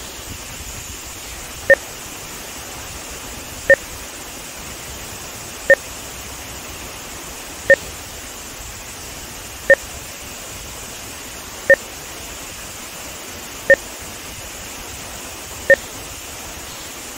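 Short two-tone beeps every two seconds, eight in all, laid over a steady rush of water pouring through a dam spillway. The beeps are instrumentation marker tones added to the soundtrack for measuring audio-video timing.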